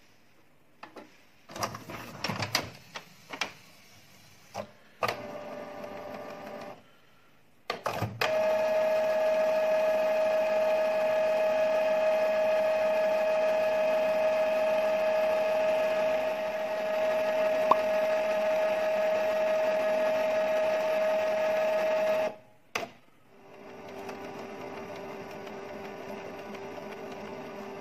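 Canon PIXMA G2411 inkjet printer's mechanism working through a cleaning cycle to refill its empty ink tubes. It opens with several clicks and clacks and a brief hum, then a loud, steady motor whine at one pitch that lasts about fourteen seconds and cuts off suddenly, followed by a quieter, lower motor hum.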